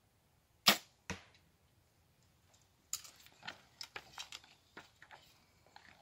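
Compound bow shot: a sharp, loud snap of the string on release, followed about half a second later by the arrow striking the target. Then, from about halfway through, a run of irregular light footsteps and crackling on the forest floor.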